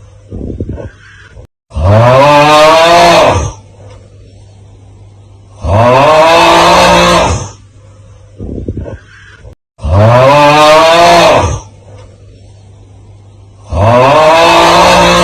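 The 'Aauuggh' TikTok meme sound effect: a man's loud, drawn-out groaning yell, looped. It comes four times, once every four seconds, each lasting about a second and a half and rising then falling in pitch. A short, quieter rasping sound falls between the yells.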